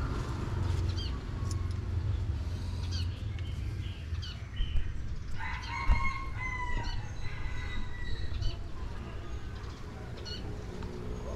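A rooster crows once, for about a second and a half, a little past the middle, over a low background rumble. Small birds chirp a few times before it.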